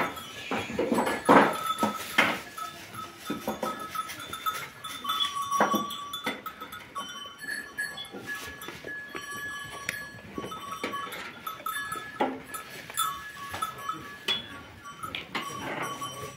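A flock of sheep crowding and eating at a metal feed trough: scattered knocks and rustling as they jostle and feed, with brief high ringing tones now and then.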